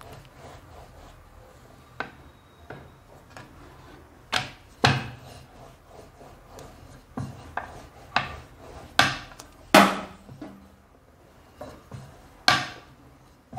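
Rolling pin working dough thin on a round metal board: a low rubbing as it rolls, broken by irregular knocks and clacks where the pin strikes the board, about nine clear ones.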